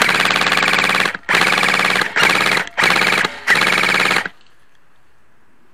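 Tokyo Marui high-cycle AK airsoft electric gun firing on full auto in five rapid bursts, the last one ending about four seconds in.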